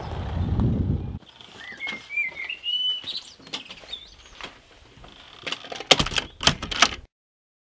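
A car engine rumbles for about a second and cuts off abruptly, and then a songbird warbles for a couple of seconds. Near the end come several sharp knocks and clicks as a wooden front door is pushed shut and latched.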